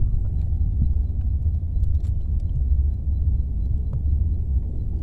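Wind buffeting the microphone outdoors: a steady low rumble, with a few faint clicks.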